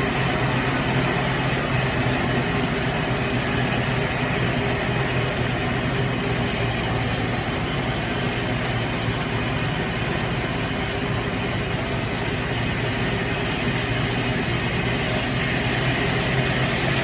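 Sawmill machinery running steadily with a constant hum and no pauses or changes.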